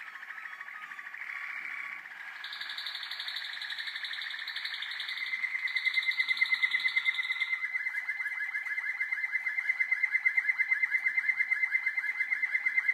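Young Malinois Waterslager canaries singing: a continuous song of rapid trills and rolls. About two-thirds of the way through it settles into a fast, even rolling trill that grows louder.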